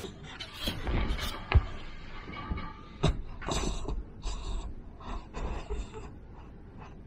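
Large-breed puppy breathing and snuffling close to the microphone in uneven puffs as it lies down to sleep, with a sharp knock about one and a half seconds in.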